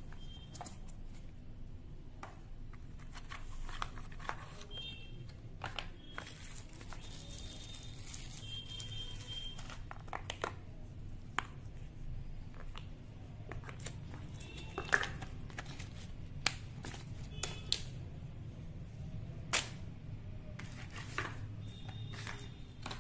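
Packaging handled by hand: scattered clicks, taps and light crinkling, with a few sharper knocks, over a steady low hum.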